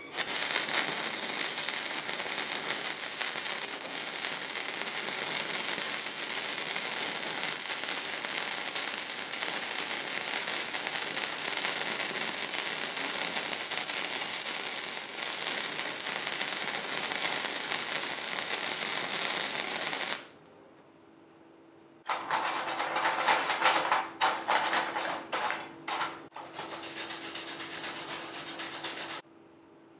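Gasless flux-core wire welding on steel angle iron with a modified Harbor Freight 90-amp flux-core welder: a steady arc crackle for about twenty seconds that then stops. After a short pause, a wire brush scrubs the fresh weld in quick, irregular strokes for several seconds.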